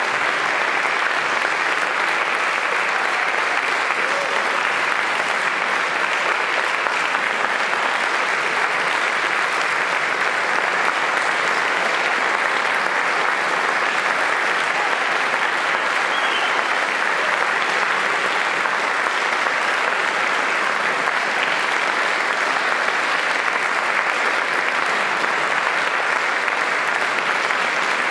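Large audience applauding steadily in a concert hall, a dense, even clapping that neither builds nor fades.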